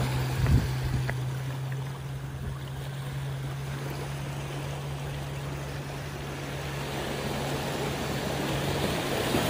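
Sea water washing and swirling against the rocks, with a steady low hum underneath and a single knock about half a second in.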